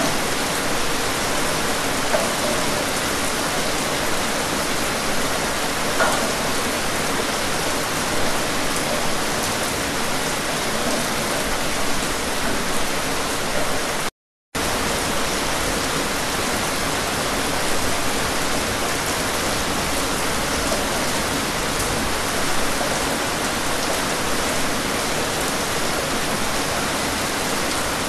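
Steady rain falling, a dense even hiss of drops with no other sound in it. The sound cuts out completely for a split second about halfway through.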